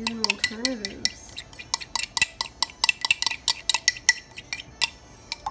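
Quick, repeated clinks, about four or five a second, of a glass measuring cup being tapped and scraped out over a metal saucepan to get the last of the thick heavy whipping cream out.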